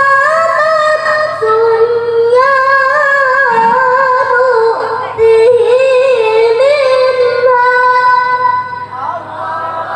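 A boy's high voice reciting the Quran in the melodic tilawah style, holding long notes with wavering ornaments, amplified through a microphone and PA speakers. The phrase fades out near the end.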